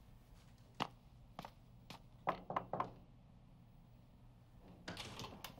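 A handful of faint knocks and taps, spaced unevenly, with a quick cluster of about four near the middle.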